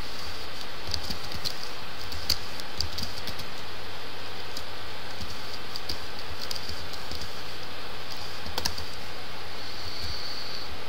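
Computer keyboard keys clicking irregularly as a search term is typed, over a steady background hiss.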